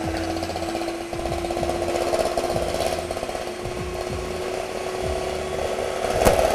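Electric hand mixer running in a stainless steel bowl, whipping cream: a steady motor hum with a fast rattle of the beaters against the bowl, and a sharp knock near the end.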